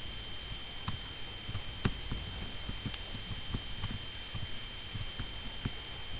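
Scattered clicks from a computer mouse, about a dozen short sharp ones with one louder click about three seconds in. Behind them runs a steady high-pitched electrical whine and a low hum.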